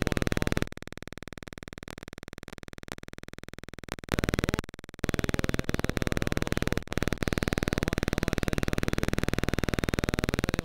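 Electromagnetic interference from the 'Den Draad' artwork, made audible through an EM detector: a rapidly pulsing electrical buzz with steady whining tones. It drops in level about a second in, comes back loud about five seconds in and cuts off suddenly at the end.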